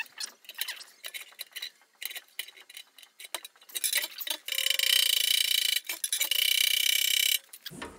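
Light clicks of steel being set in a vise, then a fast run of light ball-peen hammer blows on cold 1/8-inch steel strap clamped over a square-bar mandrel, ringing together, with a short break near six seconds and a sudden stop about seven and a half seconds in. The strap is being cold-forged flat around the mandrel.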